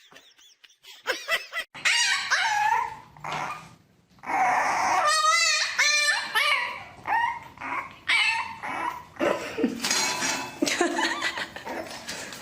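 A pet animal calling over and over in high, wavering whines and yelps, with a quick trembling call about five seconds in.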